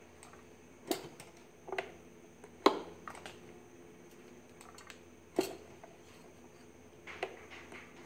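Homemade spot welder built on a rewound microwave transformer, snapping sharply as its electrodes pass current through thin stainless-steel sheet and throw sparks at the contact. About half a dozen short snaps come at uneven intervals, the loudest about a third of the way in, over a faint low hum.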